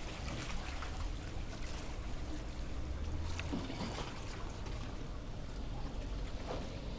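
Open-sea ambience: a steady low rumble and hiss of wind and water, with a few faint scattered ticks.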